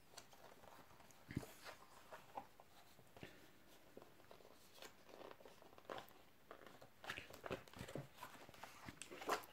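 Near silence with faint, scattered rustles and light taps: a cardboard cover insert and the plastic pocket pages of a card binder being handled, and slightly busier handling noise near the end.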